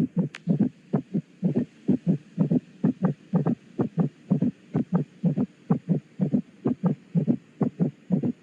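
Heart sounds heard through a stethoscope: a steady run of short, low lub-dub thumps, about three a second.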